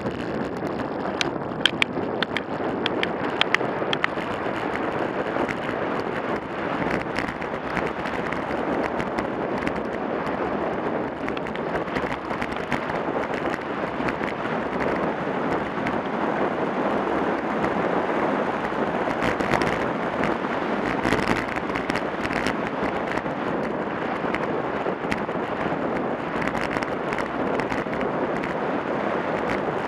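Wind rushing over the microphone of a road bike descending fast, at up to about 30 mph, with scattered sharp clicks and crackles.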